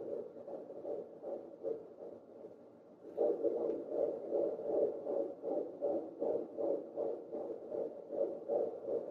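Fetal heartbeat at 14 weeks played through a SweetieSong pocket fetal Doppler's speaker: a fast, even pulse. It fades about two seconds in and comes back louder about three seconds in as the probe picks it up again.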